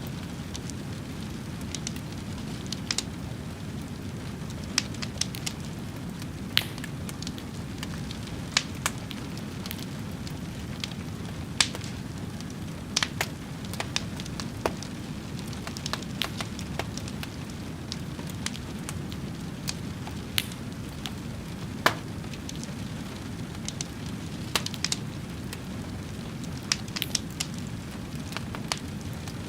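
Fire burning: a steady low rumble of flames with irregular sharp crackles and pops, roughly one or two a second.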